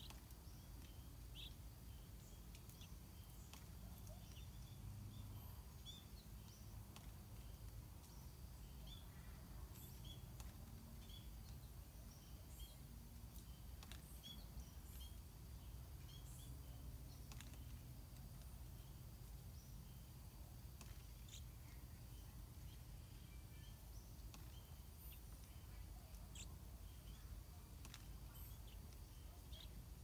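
Quiet outdoor ambience: a steady low rumble with faint, short, high bird chirps scattered irregularly throughout.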